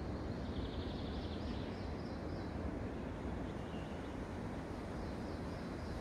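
Steady wind through a forest canopy, with small songbirds singing short high phrases over it: a rapid trill starting about half a second in, a brief lower trill around the middle, and more notes near the end.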